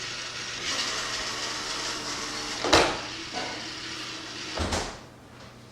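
Roomba robot vacuum's wheel motors whirring as it drives through its scripted turns and moves, with two sharp knocks, one loud about two and a half seconds in and another about two seconds later, after which the whirring drops away.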